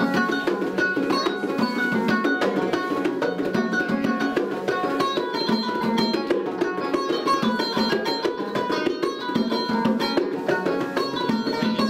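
Kora and bongos playing together: a fast run of plucked kora notes over a steady hand-drummed rhythm.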